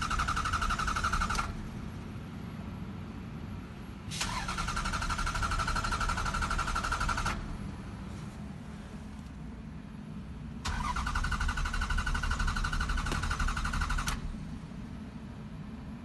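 Lexus ES300 V6 cranking on its starter three times, each a few seconds long, without the engine catching. The car turns over but won't start. A steady low hum continues underneath.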